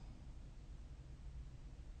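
Faint room noise: a low steady rumble with a light hiss, with no snore or breath sound standing out.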